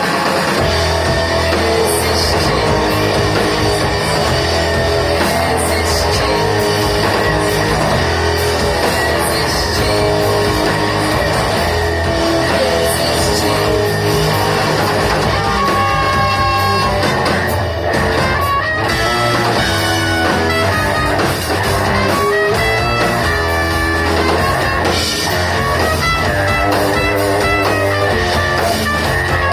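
Rock band playing live, with electric guitar over a sustained bass line.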